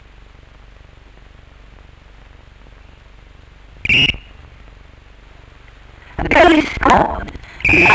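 Umpire's whistle blown for time: a short blast about four seconds in, then louder, wavering blasts from about six seconds, with a steady blast near the end.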